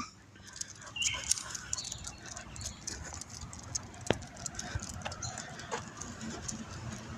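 Faint sounds of a dog walk: light footsteps and small scattered clicks and jingles, with a brief high chirp about a second in and a sharper click about four seconds in.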